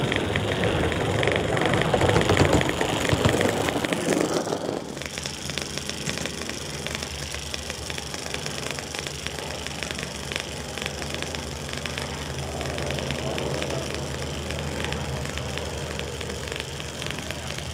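Engine of a Gauge 1 model Ruston Hornsby locomotive running steadily as it travels along the track, with a low hum and a fast, even ticking beat. Louder for the first few seconds, then quieter and steady from about five seconds in.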